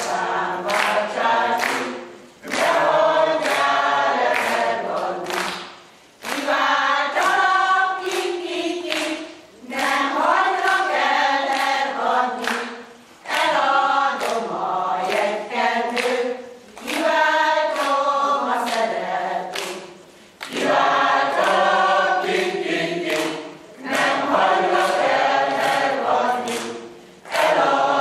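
Mixed choir of men's and women's voices singing a Hungarian folk song a cappella, in phrases of about three to four seconds with short breaks for breath between them.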